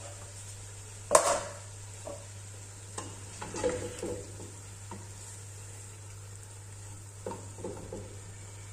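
Wooden spoon stirring and scraping chicken in a thick tomato-paste sauce sautéing in an aluminium pot, with a sizzle underneath. A sharp knock about a second in, with stirring strokes clustering around the middle and near the end.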